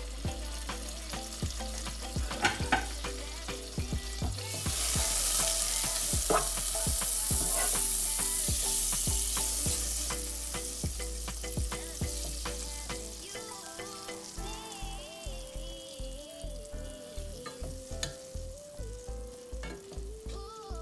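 Half a stick of butter sizzling as it melts in a hot pot for a cheese sauce. The sizzle swells about four seconds in and dies away over several seconds, with scattered clicks of a utensil before it. Background music with a steady beat comes through in the second half.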